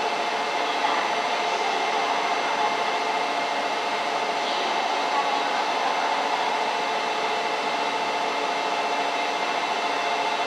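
Steady whirring hum with several steady tones from a stationary E4 series Max Shinkansen's onboard equipment, such as its cooling fans and air conditioning, running while the coupled train stands at the platform.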